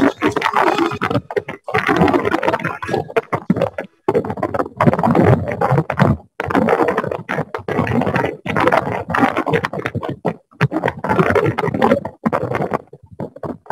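Choppy, scratchy crackling interference coming through an online meeting from a participant's unmuted microphone, cutting in and out abruptly with brief dropouts.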